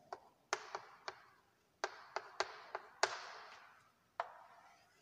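Chalk tapping and scratching on a blackboard while writing: about ten sharp, faint taps at uneven intervals, several followed by a short scratch as the stroke drags across the board.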